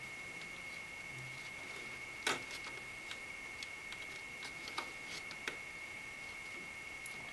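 Scattered light clicks and taps, the loudest about two seconds in, as fingers press rubber spacers onto the screw ends of a CPU cooler back plate, over a steady faint high whine.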